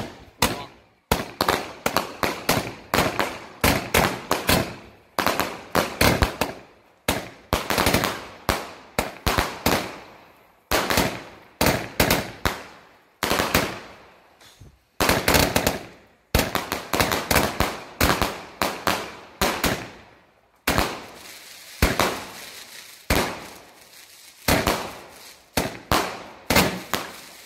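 Helios Feuerwerk 'Guardian' firework battery firing shot after shot, a sharp bang every half-second or so with a crackling tail on each. Short gaps come about a second in and around ten, fifteen and twenty seconds in.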